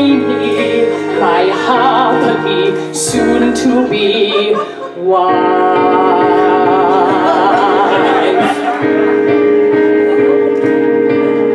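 Live song: a woman singing in a high, operatic style with wide vibrato, accompanied by piano and a small instrumental ensemble. The music thins briefly about four to five seconds in, then returns with fuller held chords under the voice.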